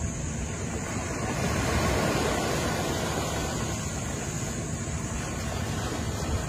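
Small waves washing onto a sandy shore, with wind rumbling on the microphone; the surf swells briefly about two seconds in.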